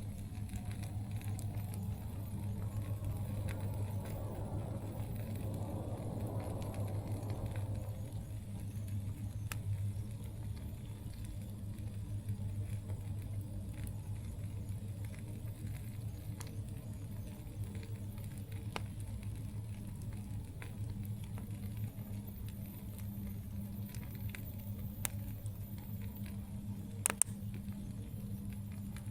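Campfire burning with sparse crackles and pops from the wood, two louder pops close together near the end, over a steady low hum.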